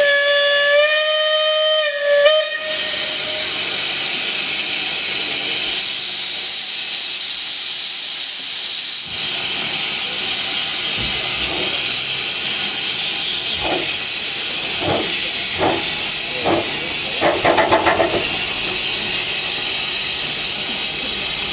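Narrow-gauge steam locomotive No. 8 Dougal, a small Barclay 0-4-0 tank engine, sounds its whistle for about two and a half seconds, and then steam hisses steadily. Later come a few separate exhaust beats as it moves off, and about three-quarters of the way through a quick flurry of beats as its wheels slip.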